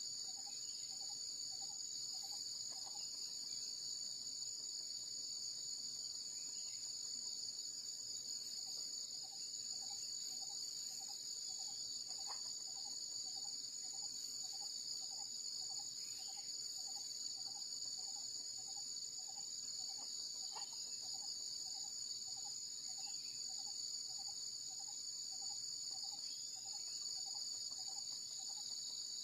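Insects trilling in a steady, unbroken high-pitched drone, with a fainter, lower call repeating evenly about twice a second behind it.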